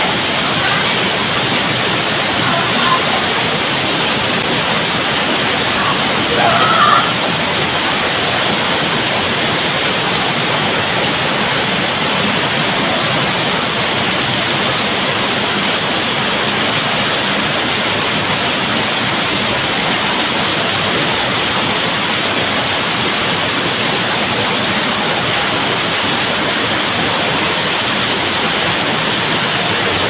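Steady, even rush of a waterfall, with water cascading over rocks close by.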